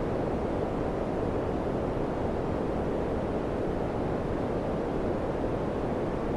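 Daikin FCQ100KAVE4 ceiling-cassette air conditioner running, its fan blowing a steady rush of air with no change in level.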